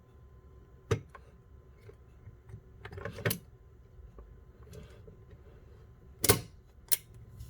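Plastic and metal clicks and knocks from handling a Master Lock Bluetooth portable lockbox and its U-bolt shackle as it is fitted back and locked. There is a single click about a second in, a short cluster around three seconds, and two louder knocks near the end.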